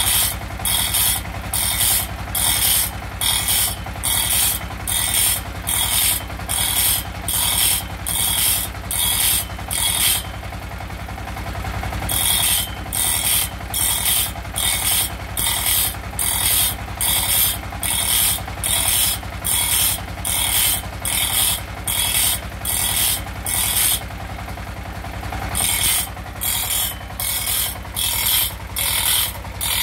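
Grinding wheel on a small electric motor sharpening the teeth of a long steel saw blade, one tooth at a time: a rasping grind about twice a second over the motor's steady hum. The grinding stops twice for a second or two, leaving only the hum.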